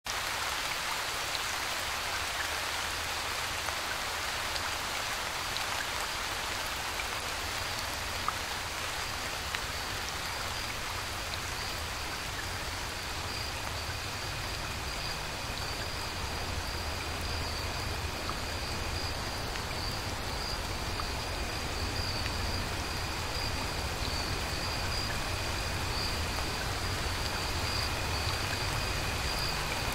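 Steady rain falling, with a low rumble underneath and a thin high tone that comes and goes from about halfway through.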